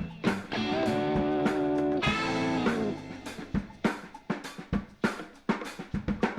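Groovy 1970s-style background music: a held chord over drums, then from about three seconds in a sparser drum break of snare and kick hits.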